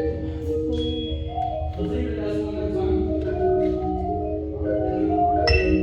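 Marching-band front ensemble playing mallet percussion: marimba and vibraphone notes ring over held, sustained chords. Near the end, a run of sharp, bright struck notes about three a second begins.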